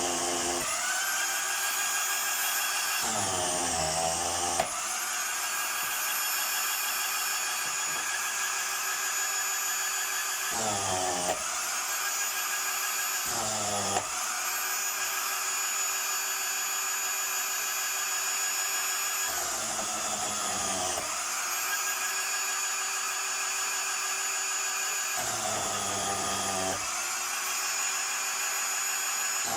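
Motor of a willow-shaving machine running with a high whine. About six times its pitch sags for a second or two, with a rough grinding, as a split willow rod is fed through and shaved, and then it climbs back. There are a few sharp clicks as pieces pass through.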